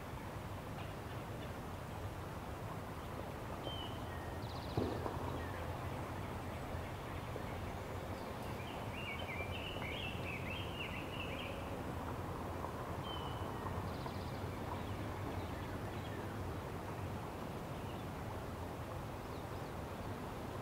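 Outdoor ambience: a steady background hiss with scattered bird chirps, a brief run of twittering around nine to eleven seconds in, and a single sharp knock about five seconds in.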